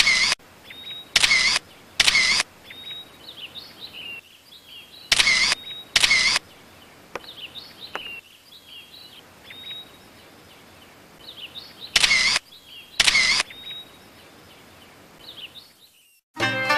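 Camera shutter clicks, seven of them: three close together, then two pairs about a second apart. Birds chirp faintly in the gaps, and music comes back in near the end.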